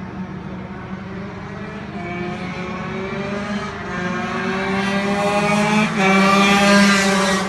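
Several racing kart engines accelerating, their pitch climbing steadily as they grow louder, loudest near the end.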